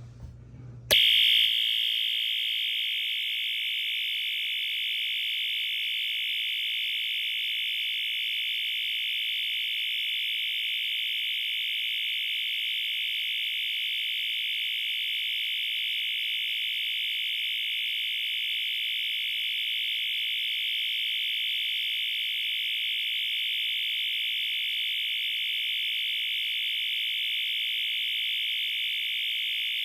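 Honeywell SC715B1028 fire alarm horn strobe, a rebranded Wheelock, sounding a loud, continuous high-pitched horn tone. It starts abruptly about a second in and holds steady without pauses.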